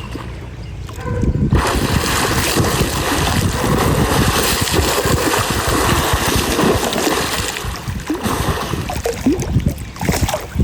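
Water splashing and churning as elephants play in a pool, starting suddenly about a second and a half in and easing off near the end.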